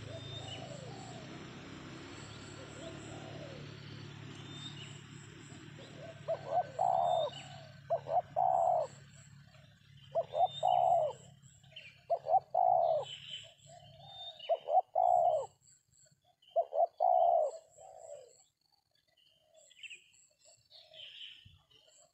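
Spotted dove (tekukur) cooing: about six loud, repeated coo phrases, one every couple of seconds, starting about six seconds in. A low steady hum fades out under the first half, and faint high chirps sound throughout.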